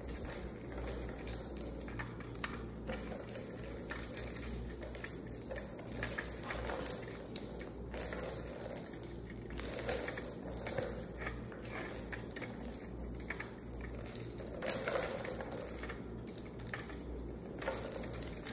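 Plastic balls rolling and rattling around a stacked ball-track cat toy as a kitten bats at them, with scattered light clicks and taps over a steady low hum.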